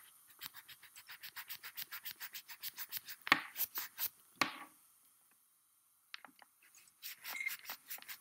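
Quick run of light computer clicks, about six a second, with two louder clicks around the middle, then a short pause and a few more: a mouse and keyboard being worked as slides are brought up on screen.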